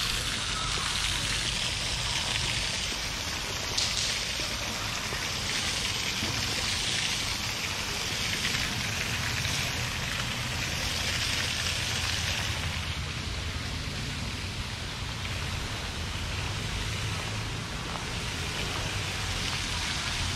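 Water running over an artificial rock waterfall and along a stream: a steady rushing hiss.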